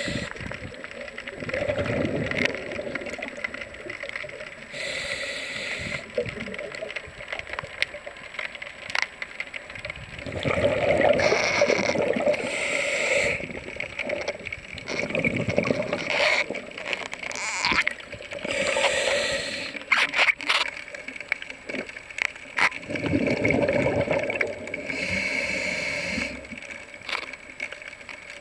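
A diver breathing underwater through a regulator: exhaled air gurgles out as bubbles in bursts lasting a second or two, every few seconds.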